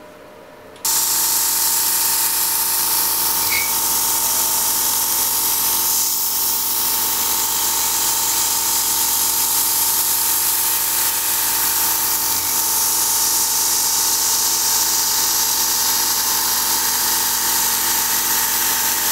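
CNC milling machine cutting a finishing pass through Corian and anodized aluminum, with a mist coolant attachment spraying: a steady high spindle whine over a loud hiss. It starts suddenly about a second in.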